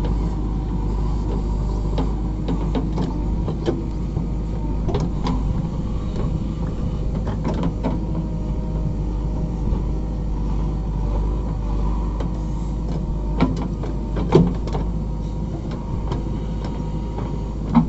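JCB 3DX backhoe loader working its backhoe arm: the diesel engine running steadily with a steady whine over it, and sharp clanks and knocks from the arm and bucket, the loudest about fourteen seconds in and again at the very end.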